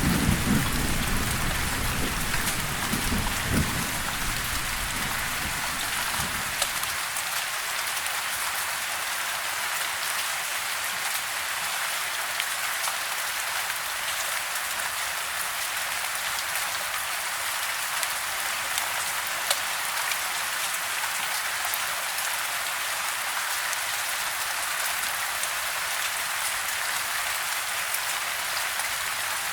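Steady rain falling on a house, an even hiss with scattered drop taps. A low thunder rumble fades away over the first six seconds or so.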